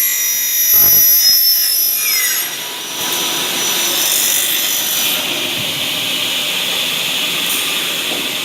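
Double-head aluminium cutting saw's blades cutting through an aluminium profile with a high-pitched screech. After about two and a half seconds this gives way to a steadier hissing as the saw keeps running.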